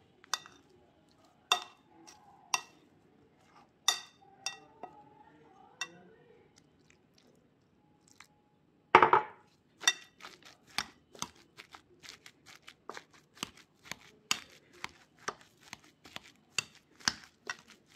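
Metal potato masher mashing boiled potatoes in a ceramic bowl, knocking against the bowl. A few spaced knocks at first, then a pause, a louder clatter about halfway through, and a steady run of knocks, two or three a second.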